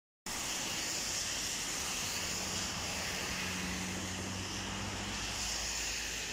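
Steady outdoor hiss of passing traffic, with a vehicle engine's low hum rising for a few seconds in the middle and then fading.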